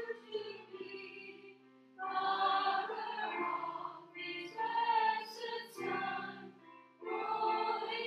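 Choir singing a hymn, the voices held in long phrases with short breaks between them.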